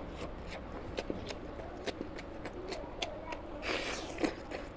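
Close-miked eating sounds: wet chewing and lip smacks with many small sharp clicks as a man eats oily mutton fat curry and rice by hand. There is one louder breathy rush of air near the end.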